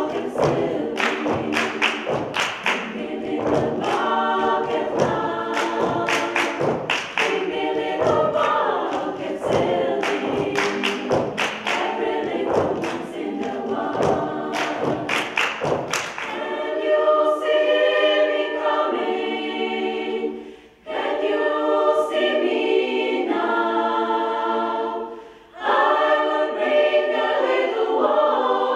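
Women's choir singing a cappella, with steady rhythmic hand clapping on the beat for about the first half. The clapping then stops and the choir sings held chords, breaking off briefly twice.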